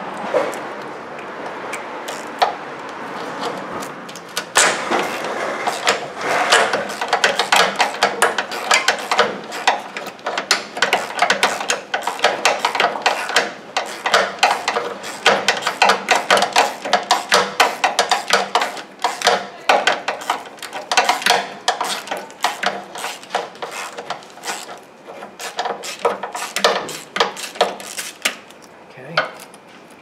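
Socket ratchet on a long extension clicking in rapid runs as a starter mounting bolt is backed out. The clicking starts about four seconds in and keeps going until just before the end.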